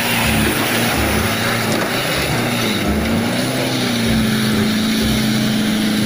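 Fuel tanker truck's diesel engine labouring through deep mud: a steady low engine drone over a continuous wash of noise, its pitch dipping and rising again about halfway through.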